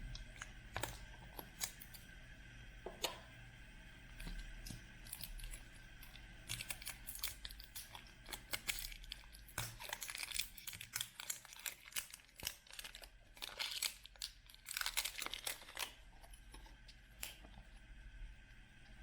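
Packaging of a surprise toy ball being torn open and crinkled by hand: a run of crackling rustles and sharp snaps, busiest in the middle of the stretch.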